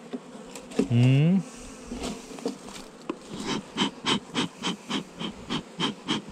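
Africanized honey bees buzzing over an open hive, with a short drawn-out vocal exclamation about a second in. From about three seconds in, sharp clicks come about three times a second over the buzz.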